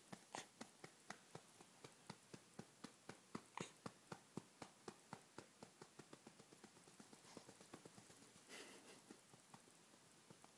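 Soft, rhythmic patting on a baby's back to bring up a burp, about three to four pats a second, growing fainter after about six seconds.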